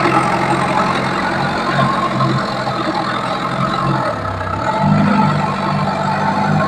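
Engine of a teak-log transport machine running steadily, with a low pulsing hum that drops briefly about two-thirds of the way through and then picks up again.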